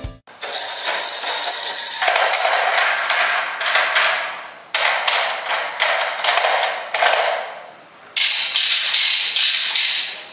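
Plastic beads and spinners on a Fisher-Price walker-to-wagon toy being spun by hand, giving a rapid clicking rattle in about four long bursts.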